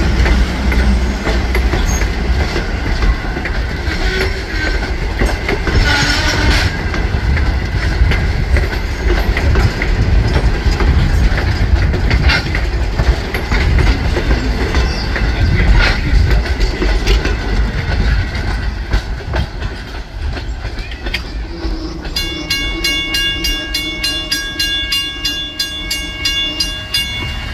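Steam locomotive No. 89 and its train passing close by: a heavy rumble with wheel clatter over the rail joints. About 22 seconds in, the train sound eases and a bell ringing rapidly, about three strikes a second, is heard over it.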